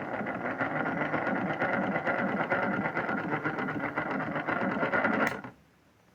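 Simba washing machine tumbling its wash load: the drum motor runs steadily for about five seconds with fine rapid ticking, then stops with a click near the end and the machine goes quiet in the pause before the drum turns again.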